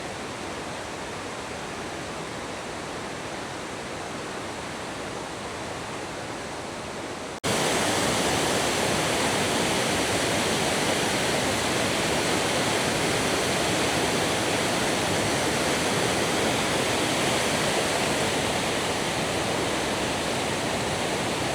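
Steady rush of water from the Rhaeadr Ddu waterfall. About seven seconds in it jumps suddenly louder and hissier, then stays steady.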